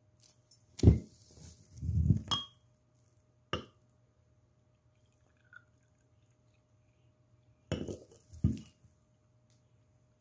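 Glass measuring jug and ceramic teacup clinking and knocking on a table: a few knocks in the first four seconds, then two more about eight seconds in as the jug is set down. A faint steady hum runs underneath.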